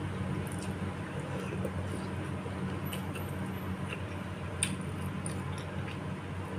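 A person eating bakso meatball soup: faint wet chewing and mouth clicks with a few light taps, over a steady low hum.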